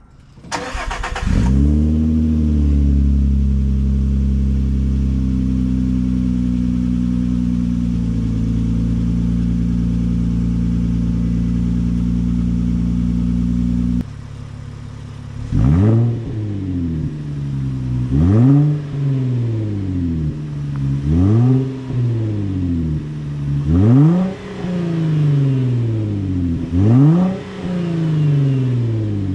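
Third-generation Nissan Frontier's 3.8-litre V6 through a Vibrant StreetPower muffler. It is cold-started: the starter cranks briefly, the engine catches and settles to a steady fast idle. About halfway through it switches to a series of quick revs to about 4,000 rpm, roughly every three seconds, each falling back to idle.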